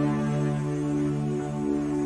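Soft background music of long held chords that swell slowly, with no beat.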